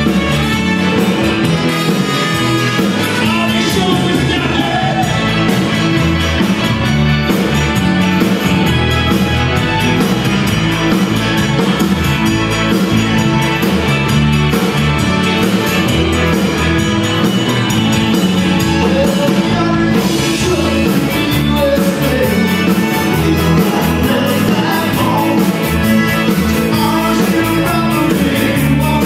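Live band music: drums, electric guitar and accordion playing an up-tempo Tex-Mex country-rock number.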